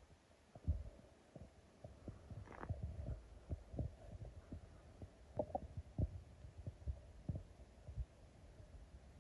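Faint, irregular low thumps and rumble of wind buffeting the microphone.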